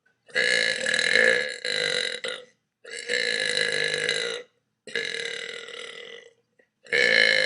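A person burping: four long, drawn-out burps in a row, each lasting one and a half to two seconds, with an abrupt cut to silence between each one.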